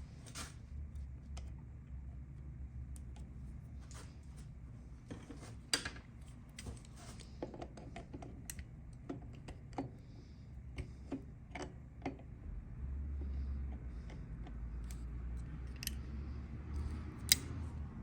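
Scattered light clicks and taps of hand tools and small metal parts being handled during engine work, at irregular intervals, with a sharper click near the end, over a steady low hum.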